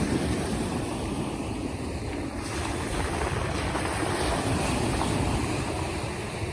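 Black Sea surf, waves washing steadily, with wind rumbling on the microphone.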